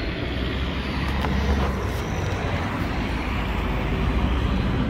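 Road traffic on a town street: a steady rumble and hiss of passing vehicles.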